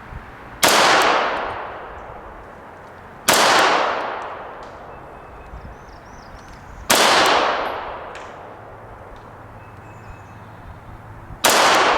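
Four 9mm pistol shots from a Sig Sauer P226 Legion SAO, fired slowly about three to four seconds apart in deliberate aimed fire, each trailing off slowly after the crack.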